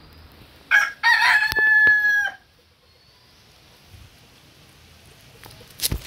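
Rooster crowing once about a second in: a short opening note, then a long call that settles on a held tone before breaking off. A sharp knock near the end.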